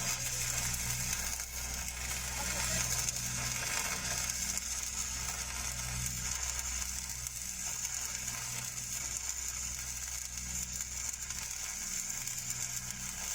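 Stick (SMAW) welding arc crackling and hissing steadily as a downhill pass is run on pipe, over a steady low hum.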